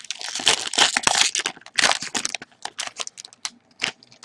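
Foil wrapper of an Upper Deck hockey card pack being torn open and crinkled in the hands. There is a dense burst of crackling for about the first second and a half and another around two seconds in, then scattered short crackles.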